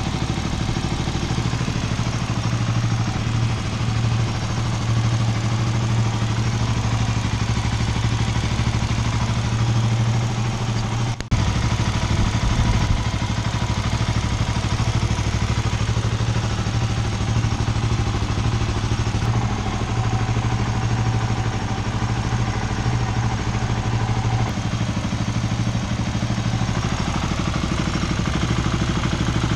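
Motorstar Cafe 400 motorcycle engine idling steadily, with a brief dip and click about eleven seconds in.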